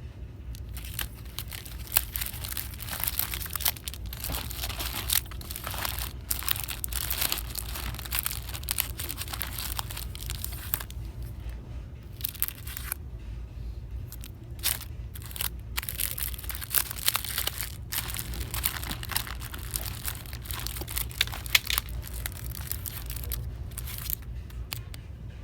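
Crinkling and rustling of plastic packaging or wrapping being handled, in irregular bursts with a few short pauses, over a steady low hum.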